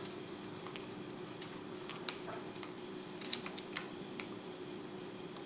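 Light, scattered clicks and taps of a disassembled keyboard's plastic frame, membrane sheet and rubber key domes being handled, about seven in all, bunched around the middle, over a steady low hum.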